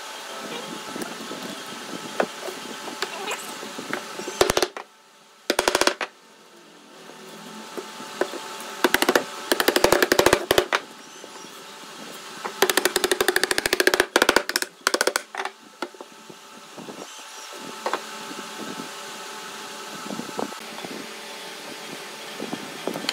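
Several bursts of rapid knocking on wood, in the assembly of glued pine frame pieces, with steady workshop noise between the bursts.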